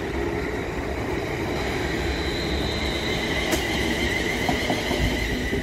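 Class 350 Desiro electric multiple unit departing past the platform: rumble of wheels on rail under a steady high-pitched electric whine, with one sharp click about halfway through.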